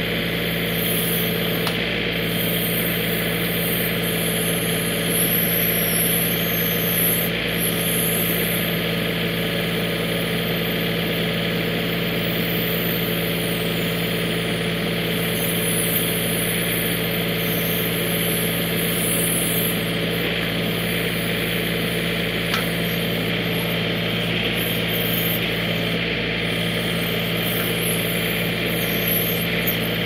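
John Deere 3032E compact tractor's three-cylinder diesel engine running steadily at an even speed.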